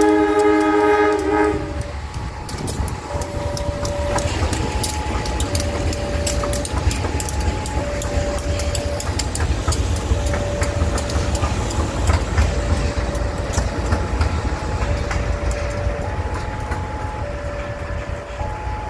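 A diesel-electric locomotive's horn blasts at the start and cuts off after about two seconds. A line of coupled locomotives then rumbles past, with clicks of the wheels over the rail joints. Behind it, a two-tone warning signal alternates high and low about once a second.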